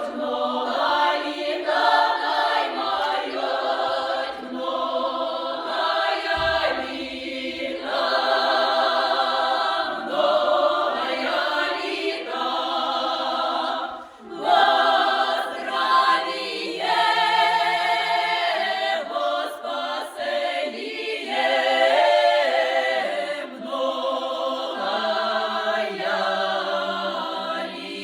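A group of voices singing a cappella, with sustained sung phrases and a short break about halfway through.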